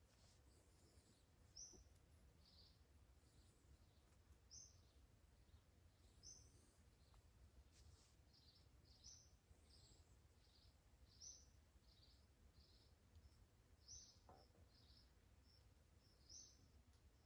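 Faint bird chirping: short, high calls repeated every second or so, some louder and some softer, over a low steady rumble.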